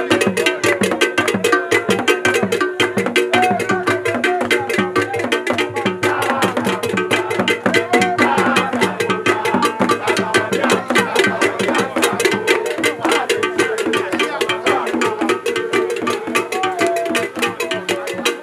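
Lively music of drums and a clanking bell, beaten in a fast, steady rhythm.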